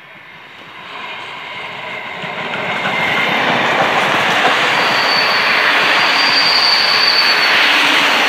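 PKP class Ol49 steam locomotive and its passenger coaches approaching and passing close by, growing louder over the first three seconds into a steady rumble of wheels on the rails. A high wheel squeal sounds for a couple of seconds about halfway through.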